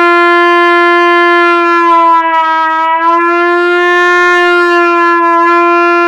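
Trumpet holding one long, loud sustained note. About two seconds in, the pitch sags a little and then comes back up, then settles steady: the player is bending the tone with the lips to find the centre of the note, where the lips vibrate best.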